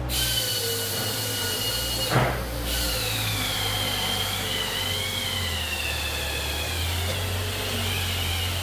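A motor running steadily with a high whine that drifts slightly in pitch, and a single knock about two seconds in.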